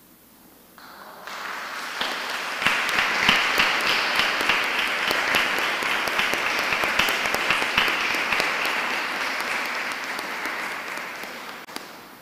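Congregation applauding. The clapping starts about a second in, swells to full within a couple of seconds and dies away near the end.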